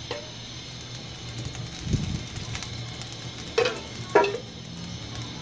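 A pan on a gas burner being greased with oil: a low steady hum, a soft thump about two seconds in, and two short ringing clinks near the end.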